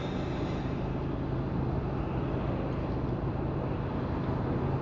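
Camper van driving, heard from inside the cab: steady engine hum and road noise.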